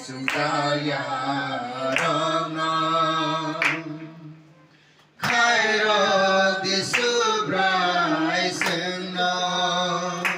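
Singing in long, held notes, broken by a sharp click every couple of seconds; the singing drops away for about a second around four seconds in, then comes back loud.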